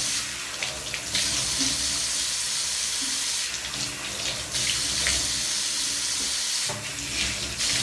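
Tap water running into a sink while the face is rinsed, the sound of the stream changing every second or so as hands catch and splash the water.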